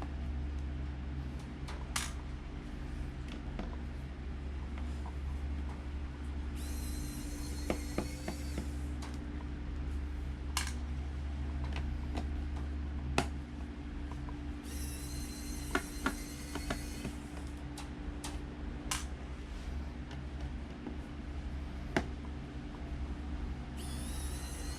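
Small electric screwdriver whirring in three short bursts of about two seconds, its pitch rising slightly, as it backs out a laptop's bottom-panel screws. Light clicks of metal on the case come in between, over a steady low hum.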